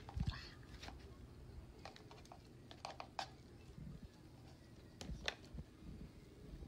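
Soil being scooped into a small plastic container: faint scattered rustles and light clicks.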